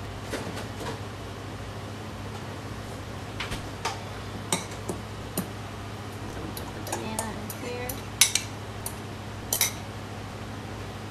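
Kitchen dishes and utensils being handled on a counter: scattered clinks and knocks, the sharpest about eight seconds in, over a steady low hum.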